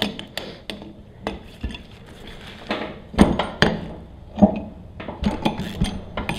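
Socket wrench and metal tools clinking and knocking against a steel C-clamp and a pressure washer pump's housing as its tight bolts are broken loose: scattered clicks, with a few louder knocks about three to four and a half seconds in.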